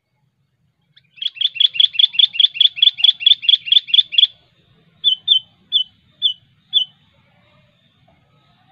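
Sooty-headed bulbul calling: a fast run of about fifteen sharp chattering notes, some five a second, for about three seconds, then five separate sharp notes about half a second apart.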